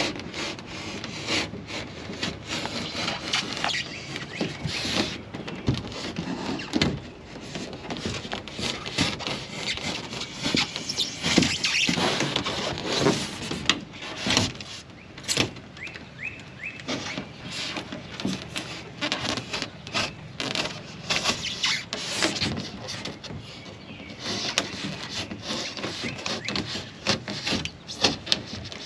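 Razor knife blade drawn through a 1-inch pink foam insulation board, an irregular scratchy crackle in many short strokes as the blade cuts along the marked line.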